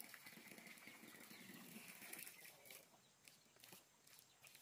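Near silence: faint outdoor ambience, with a faint high chirring in the first half and a few faint ticks.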